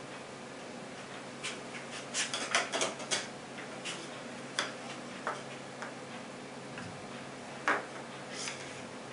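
Handling noise from a Browning Leverage .22 pellet air rifle with a hardwood stock being turned over in the hands: a quick run of light clicks and knocks about two seconds in, a few scattered ticks after, and one sharper knock near the end.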